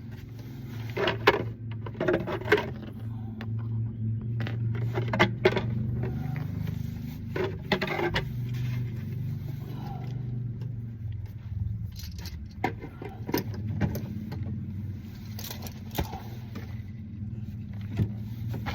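Metal clinks, taps and scrapes of an oil filter wrench being fitted to and worked on a car's oil filter, in irregular clusters over a steady low hum.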